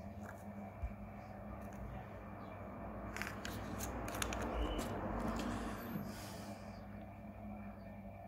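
Handling noise as small objects are picked up and moved on a tabletop: a rustle that swells in the middle, with a few sharp clicks about three to four seconds in, over a low steady hum.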